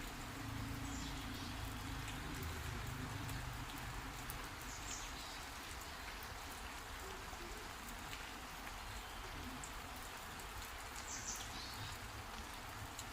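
Steady rain with many fine drops ticking on surfaces. A few short high chirps come through about a second in, around five seconds in, and near eleven seconds.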